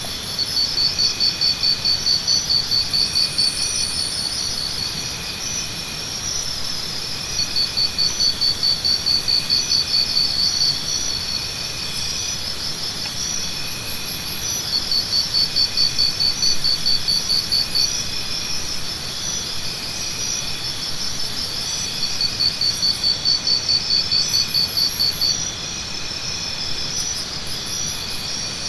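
Jungle ambience of many insects chirping and trilling in overlapping high-pitched layers. A louder, rapidly pulsing trill of about three seconds rises out of it four times, roughly every seven seconds.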